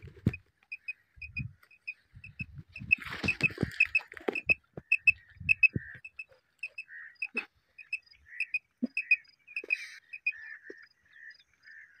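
Hand-held quail caller (tapcha) imitating a quail's call: short, high, piping chirps in twos and threes, repeated again and again, with soft taps and rustles from the hands working it.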